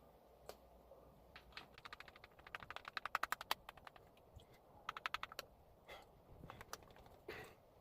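Heavy cream being shaken by hand in a container with an agitator knocking about inside: several bursts of rapid clicking, the longest about two seconds long in the first half.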